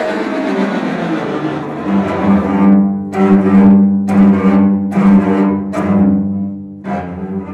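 Cello and accordion playing contemporary classical music. A strong held low note comes in about two seconds in, with a run of sharp accented strokes over it.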